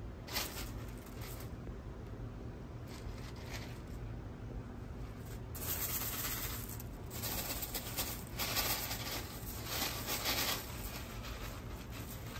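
Dry elbow macaroni rattling and clattering in a plastic tub as ferrets dig through it and a hand stirs it. The clatter is busiest and loudest in the middle stretch, from about six seconds in to about ten.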